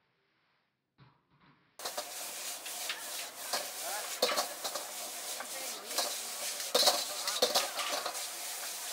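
Near silence at first, then from about two seconds in, noodles sizzling in a hot wok over a gas flame, with metal tongs clicking and scraping against the wok as they are tossed.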